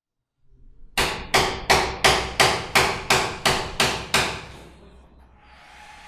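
A hammer striking about ten times in a steady rhythm, roughly three blows a second, each ringing briefly. Near the end a faint machine whir starts to build.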